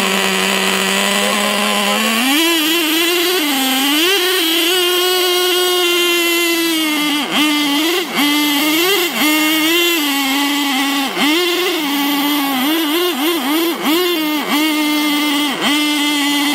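RC trucks' motors running hard under load, pulling against each other in a tug of war. Their steady pitched drone rises about two seconds in, then keeps dipping and swinging back up as the throttle is eased off and reapplied.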